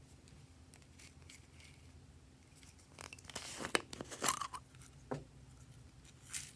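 Glossy slime being mixed by hand: a run of short, crackly, sticky squishes and pops about halfway through, then a single click and one more brief squish near the end.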